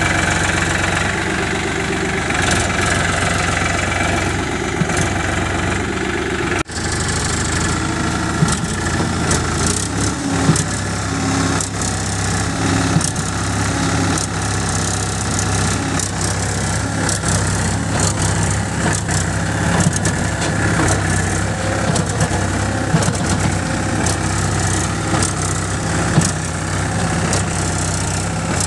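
Powertrac 439 Plus tractor's diesel engine running steadily at low speed, with the tractor stuck in deep mud.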